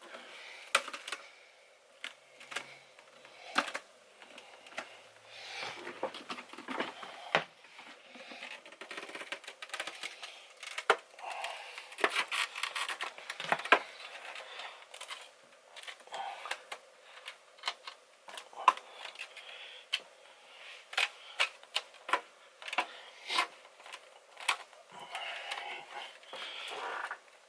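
Irregular clicks, taps and scraping of hard plastic as a car headlight's separated lens and housing are handled and cleaned of stringy butyl sealant.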